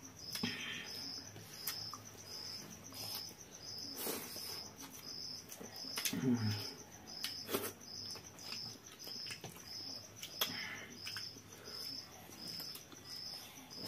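A cricket chirping steadily in the background, a high chirp repeating evenly at roughly three every two seconds. A few sharp clicks and soft handling noises from eating by hand sound over it, with a short low sound about six seconds in.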